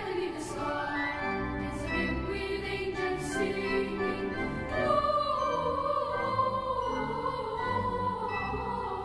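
A choir singing in sustained chords, with a high voice line sliding slowly downward over the second half.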